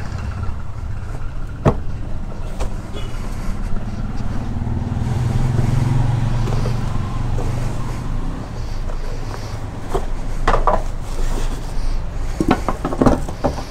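A cardboard helmet box is handled and its flaps opened, with rustling and scraping strokes in two short bursts near the end. Underneath, a steady low rumble swells in the middle.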